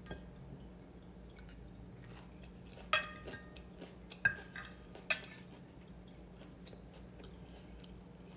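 A metal fork clinking against a dinner plate three times in quick succession, each clink ringing briefly.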